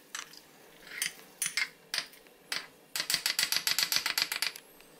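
Small metal spoon clinking and scraping against a glass jar as pesto is spooned and pressed in: a few separate clicks and scrapes, then about three seconds in a fast run of clinks, roughly ten a second, for about a second and a half.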